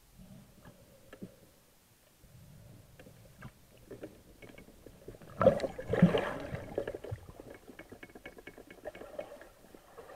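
Muffled underwater sound through a camera mounted on a speargun. About five and a half seconds in comes a loud rush of water churning and splashing as the diver comes up near the surface, followed by a run of quick sharp ticks and crackles.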